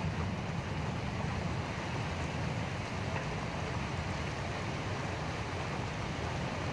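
Steady autumn rain falling as an even hiss, with a constant low rumble underneath.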